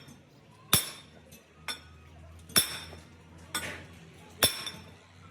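Hammer striking metal, steady blows about once a second, each with a short metallic ring.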